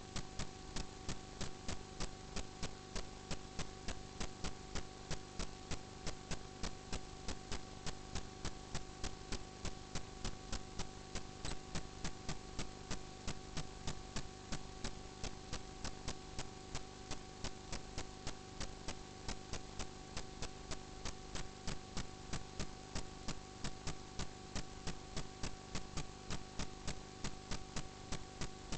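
Steady electrical hum with a regular ticking, about three ticks a second, from drain inspection camera equipment.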